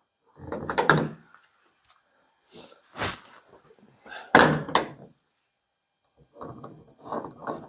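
Irregular knocks, bumps and scrapes of gloved hands and a straight edge being handled against a van's sheet-metal door and panels, in four short clusters, the loudest about four and a half seconds in.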